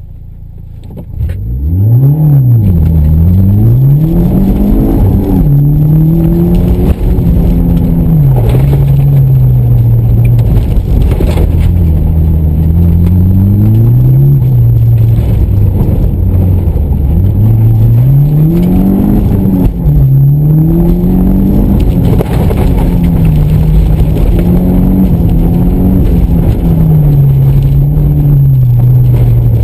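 2014 Mitsubishi Lancer Evolution's turbocharged 2.0-litre four-cylinder engine, heard from inside the cabin. It pulls away hard about a second in, then revs up and drops back over and over as the car is driven flat out through a dirt rallycross course.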